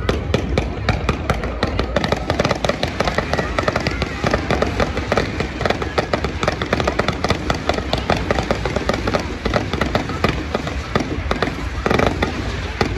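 Fireworks going off in a dense, rapid crackle of many small pops and bangs a second, from spark fountains and crackling comets, with a louder burst near the end.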